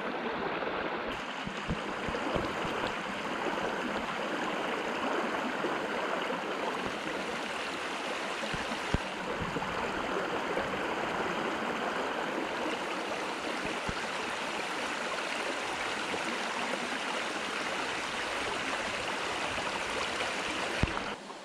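River water rushing steadily over rocks, an even, unbroken rush with a few brief low thumps; it cuts off abruptly near the end.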